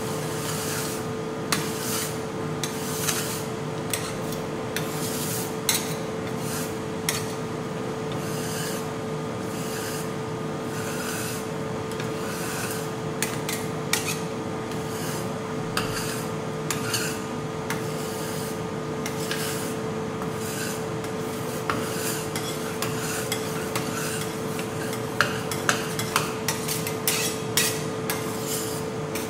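Metal scraper spatulas scraping and chopping frozen ice cream base on a steel cold plate: repeated rasping strokes with sharp clicks of the blades on the plate, over a steady hum. The strokes come faster and louder near the end.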